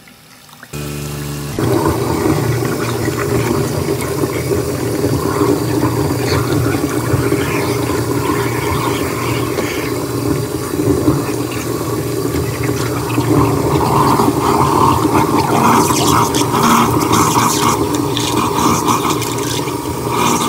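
Tap water running hard into a stainless steel kitchen sink and rushing down the drain. It starts about a second in and stays steady throughout.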